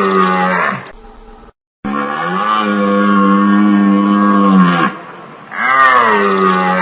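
Water buffalo bellowing: a call that ends about a second in, then a long, steady, low call of about three seconds, and a third call starting near the end, each bending in pitch at its start and finish.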